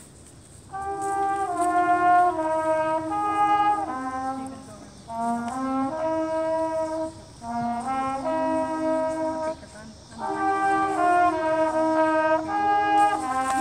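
A high school marching band's brass section playing held chords. The music comes in about a second in and goes in short phrases with brief breaks between them.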